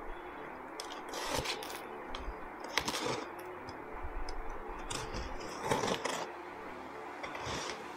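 A small blade slitting the packing tape on a cardboard box, in four short scraping cuts with the cardboard rustling between them.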